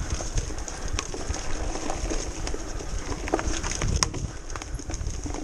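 Mountain bike riding fast down a dirt singletrack: tyres rolling over the dirt, with scattered clicks and knocks from the bike rattling over bumps.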